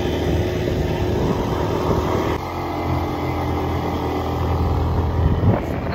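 Yamaha Aerox 155 scooter's single-cylinder engine running as it rides along, its note changing about two seconds in. There is a brief thump near the end.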